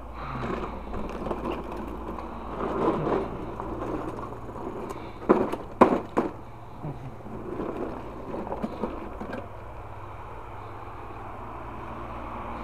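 Rustling and knocking from things being handled, with several sharp knocks about five to six seconds in, over a faint steady low hum.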